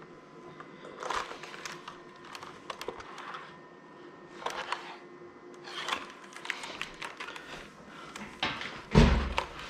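Handling noise from a plastic computer keyboard being turned over and examined: scattered clicks, taps and rustles, with a heavier thump about nine seconds in.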